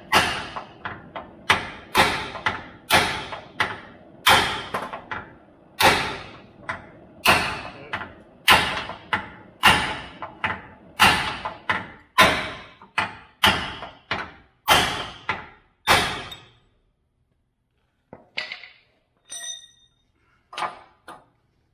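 Hammer blows on a steel drift driven into a torch-heated steel chassis rail, about one and a half ringing strikes a second, each followed by a lighter bounce tap. They stop about three-quarters of the way in, and a few light metallic clinks follow near the end.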